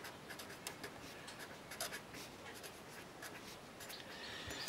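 Pen writing block capitals on a sheet of paper: a quick run of short, faint scratching strokes.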